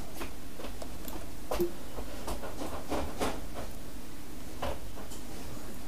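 Computer keyboard typing: irregular key clicks, a few a second, over a steady low background hum.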